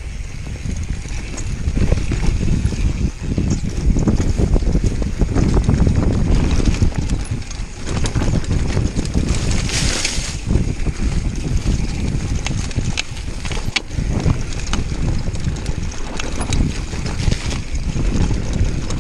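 Mountain bike descending a dirt singletrack at speed: wind buffeting the action camera's microphone, with tyres on dirt and the bike's knocks and rattles over bumps. About ten seconds in, a short hiss as tall grass brushes against the bike.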